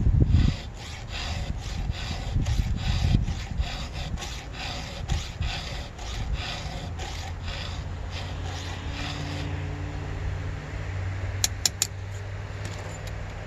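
Round chainsaw file rasping through the cutters of a ripping chain on a vise-clamped Stihl bar, sharpening the teeth in quick even strokes of about three a second. The strokes stop about two thirds in, leaving a low steady hum and a few sharp clicks near the end.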